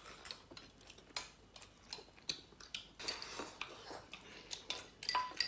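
Chopsticks clicking against bowls while people eat and slurp glass noodles, with a short noisy slurp about three seconds in. Near the end a bowl gives a ringing clink.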